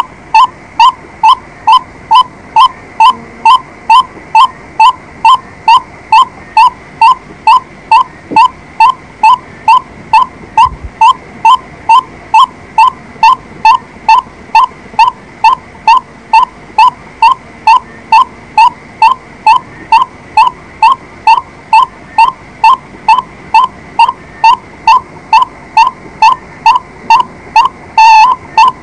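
White-breasted waterhen calling: one short pitched note repeated evenly and monotonously, about twice a second. A note near the end is louder and distorted.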